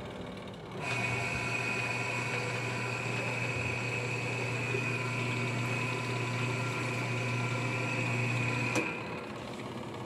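Top-loading washing machine motor running steadily with a low hum and a high whine, starting about a second in and cutting off abruptly with a click near the end.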